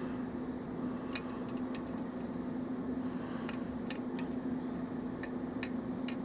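Light, irregular metallic ticks and clicks of a lock pick working the pin stacks of a pinned Russwin lock cylinder held under turning tension. A steady low hum runs underneath.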